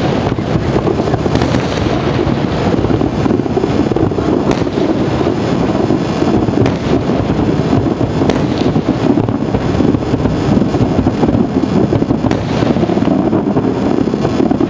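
Aerial firework shells bursting in a dense barrage, their booms running together into a continuous low rumble, with a few sharper cracks standing out here and there.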